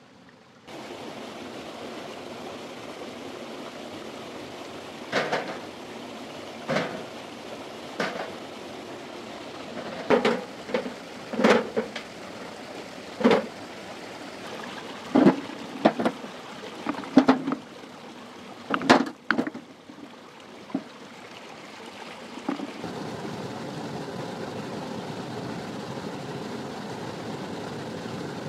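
About fifteen sharp knocks at irregular intervals, as of hand-tool blows, over a steady rushing noise that grows louder near the end.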